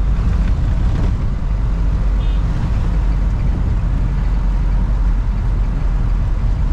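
Steady low rumble of a car on the move, engine and road noise inside the cabin.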